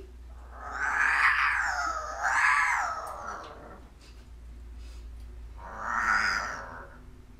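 African grey parrot growling a mimicked "rawr": a long growl that swells twice in the first few seconds, then a shorter one about six seconds in.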